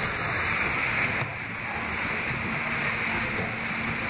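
Kawasaki R160 subway train running past on the track, a steady rush of wheel and rail noise, with a faint low hum joining about a second in.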